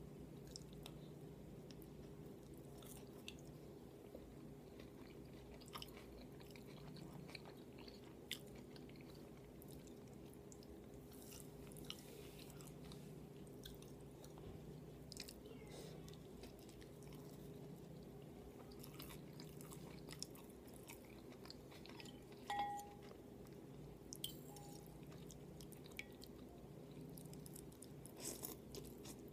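Close-miked eating mouth noises: soft chewing with scattered wet clicks, a louder cluster about three-quarters of the way through, over a steady low hum.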